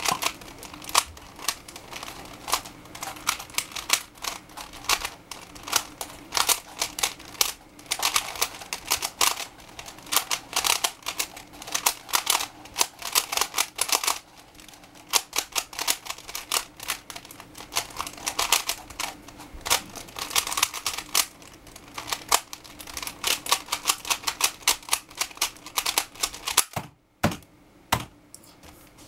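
Rapid clicking and clacking of a 3x3 Rubik's cube's plastic layers being turned in quick bursts during a timed speedsolve, with a brief pause near the end.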